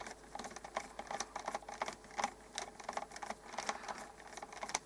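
Light, irregular clicks and ticks, several a second, of a screwdriver turning out the aerial screw on a small radio's case.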